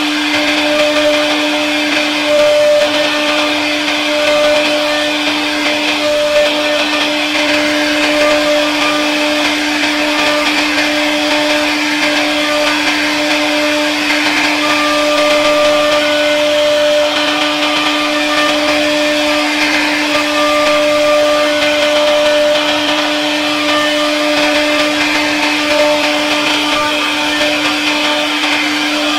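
CNC router spindle running with a steady whine while its bit carves a relief pattern into a wooden door panel, over the hiss of the cut. A higher tone comes and goes as the cutter moves.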